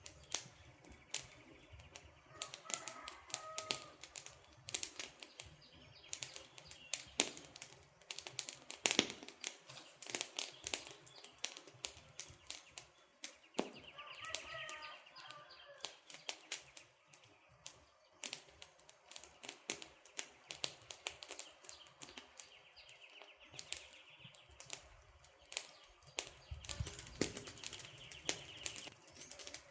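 Campfire of burning wood logs crackling, with many sharp pops and snaps at an irregular rate. Birds chirp briefly in the background, around 3 seconds and again around 14 seconds.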